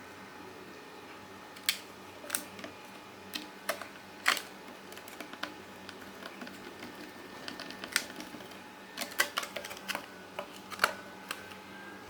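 Scattered light clicks and taps of small parts of a computer power supply being handled and fitted back together, more frequent in the second half, over a faint steady hum.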